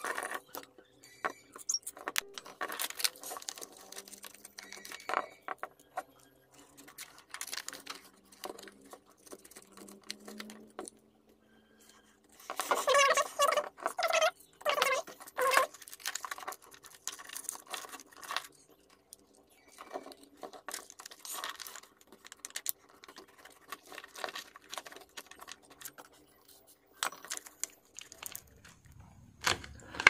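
A glued plastic phone back panel being pried and cut away with a thin plastic sheet and blade: many small irregular clicks, ticks and scraping crackles as the adhesive gives way.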